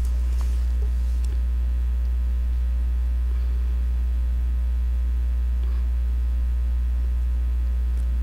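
Steady low electrical mains hum. A few faint paper rustles about a second in.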